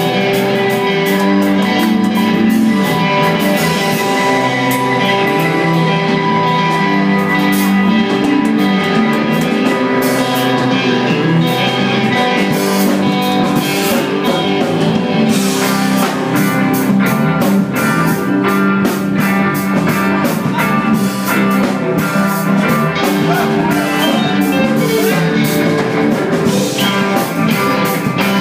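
Live rock band playing electric guitars, bass guitar and drum kit together in a loud, dense instrumental passage. The drums and cymbals get busier about halfway through.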